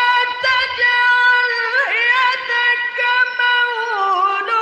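A man reciting the Quran in melodic tilawah style in a high voice: long held notes with ornamented turns in pitch, dipping lower near the end.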